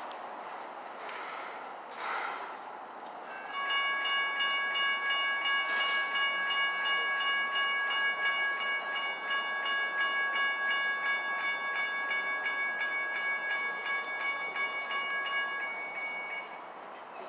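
Railroad crossing warning bell ringing in rapid, evenly spaced strokes as the crossing signals activate for an approaching light rail train. It starts about three and a half seconds in and stops shortly before the end.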